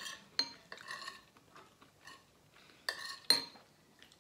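Metal forks and spoons clinking and scraping against ceramic plates as food is eaten, a string of short sharp clinks, the loudest near the start and about three seconds in.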